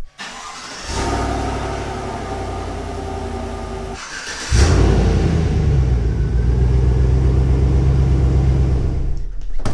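Pickup truck engine running. After a brief break, a louder engine comes in abruptly about halfway through and runs steadily.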